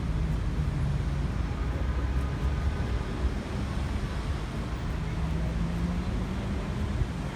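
Road traffic: a steady low rumble of passing vehicles, with the hum of engines rising briefly about a second in and again in the second half.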